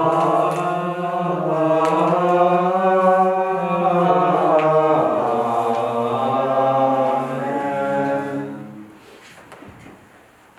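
Several voices singing a slow Byzantine liturgical chant, long held notes moving in steps, fading out about eight and a half seconds in; a few faint knocks follow.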